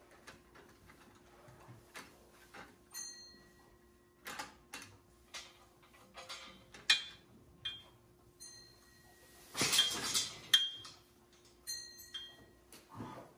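Steel frame of a homemade round-bale unroller clanking and rattling as it is worked by hand to tip the bale down, with short ringing metallic notes. About ten seconds in there is a louder burst of clatter and rustling as the bale goes down.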